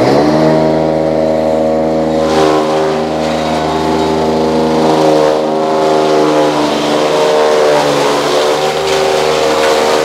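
A motor running steadily with a pitched hum, its pitch sagging slightly a few times as if under varying load.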